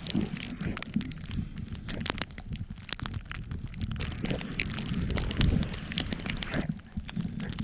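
Wind buffeting the microphone, with irregular crunching and crackling in snow.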